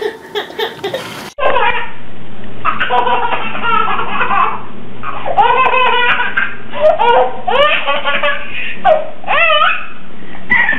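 A baby laughing hard in repeated bursts of belly laughter, over a faint steady low hum.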